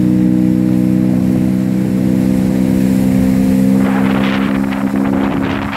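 Motorboat engine running at a steady pitch as the boat cruises. About four seconds in, water rushing and splashing along the hull, with wind on the microphone, joins the engine.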